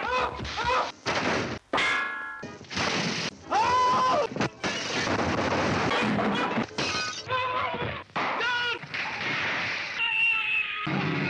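Soundtrack of old slapstick film scenes cut quickly together: crashes and shattering over music, the sound changing abruptly every second or so.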